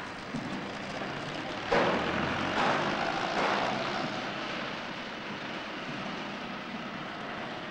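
Shipyard machinery noise: a steady rushing mechanical noise that swells suddenly about two seconds in, is loudest for a second or two, then eases back.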